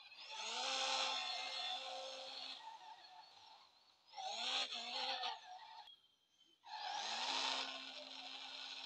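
Drift car accelerating hard in three bursts, the motor's pitch rising quickly and then holding under a loud hiss of sliding tyres. The first burst lasts about two seconds, the second is short, about four seconds in, and the third starts near seven seconds and carries on.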